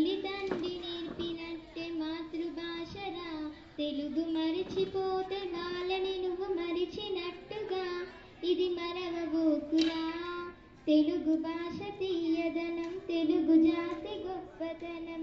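A girl singing solo into a microphone, unaccompanied, in melodic phrases with held notes and brief pauses for breath between them.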